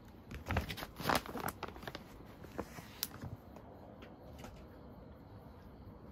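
Small dog rummaging across a quilted duvet after a tossed treat: scattered rustles and light scratching and sniffing noises for about three seconds, then it goes quieter.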